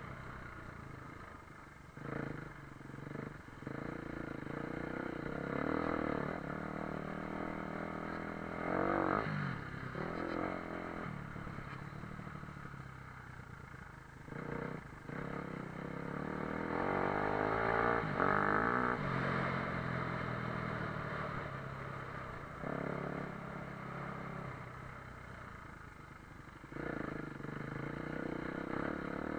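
Motocross dirt bike engine revving up and falling back again and again as the throttle opens and closes, with the loudest runs about a third of the way in and again about two-thirds through.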